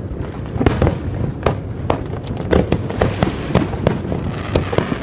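Aerial fireworks display: many sharp bursts of firework shells, several a second at uneven spacing, over a continuous low rumble of booms.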